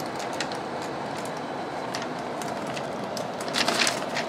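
Portable HEPA air purifier's fan running hard, a steady rush of air with a faint hum. Near the end a sheet of paper held against its intake rustles a few times.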